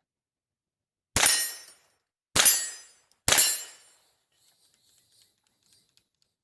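Three .22LR shots from an AR-15 with a CMMG .22LR conversion kit, about a second apart, each with a short sharp report and a brief echo. A few faint light clicks follow.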